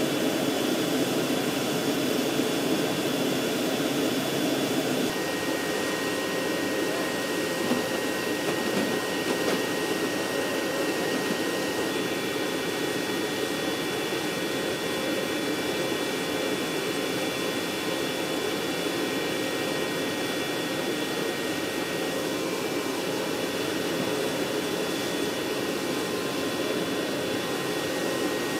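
Turbine noise from an AH-64 Apache on the ground: a steady rush with thin high whining tones, which change pitch about 5 and 12 seconds in.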